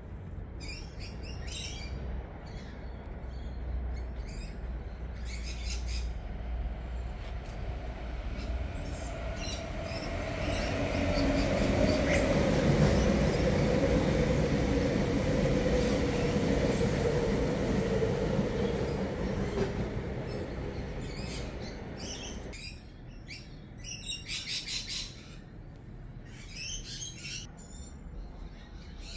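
Birds chirping in short scattered bursts over a passing vehicle's rumble. The rumble swells to a peak about halfway through, carrying a slowly falling tone, then drops off suddenly about three-quarters of the way in.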